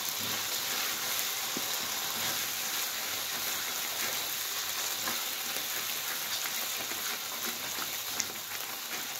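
Blended chili paste sizzling as it fries in hot oil in a wok, with a spatula stirring and scraping through it. The sizzle is a steady hiss, with small ticks now and then.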